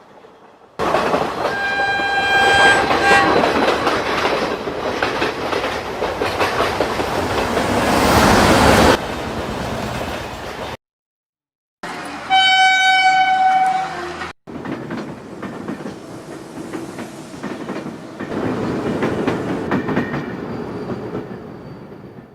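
A train running with a rolling rumble and wheel clatter, and its horn sounding twice, a short blast about two seconds in and a longer one about twelve seconds in. The sound cuts off abruptly a few times, with a second of silence near the middle.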